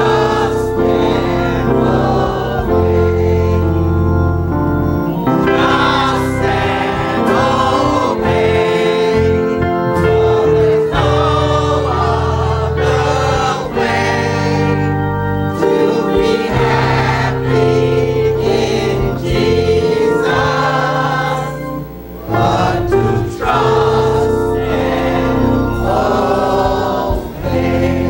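Church choir singing a hymn in unison phrases over sustained organ notes.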